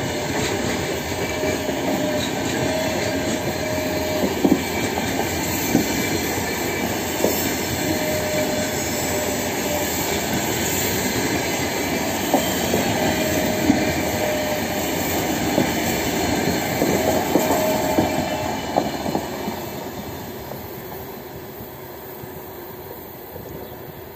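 Passenger coaches rolling past on the rails: steady wheel-and-rail noise with irregular knocks as wheels cross rail joints and brief, high wheel squeals, fading from about twenty seconds in as the last coach moves away.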